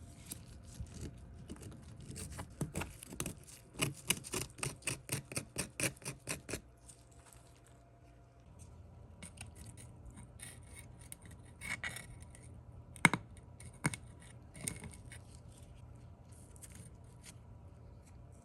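Hand work on metal pistol parts: a run of quick, even scraping strokes, about four a second, then scattered clicks with one sharp click about two thirds of the way in.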